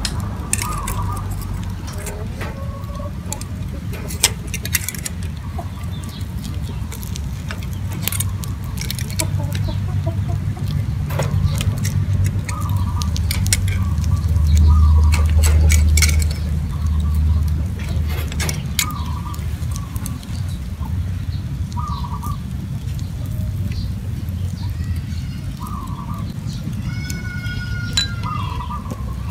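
Chickens clucking in short calls over a low rumble that swells in the middle, with scattered sharp clicks of metal tongs against ceramic bowls on a wire grill. A bird chirps near the end.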